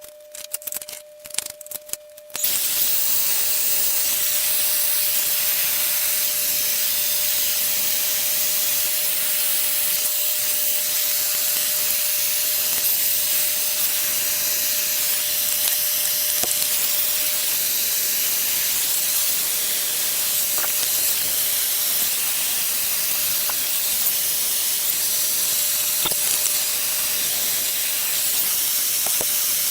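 A few clicks, then about two seconds in a plumber's gas torch starts up with a steady, loud hiss, its flame heating copper pipe fittings for soldering.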